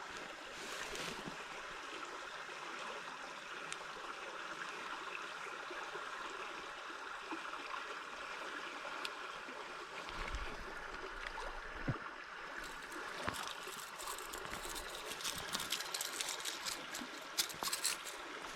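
Steady flow and trickle of a small river. A quick run of light clicks and ticks comes in near the end.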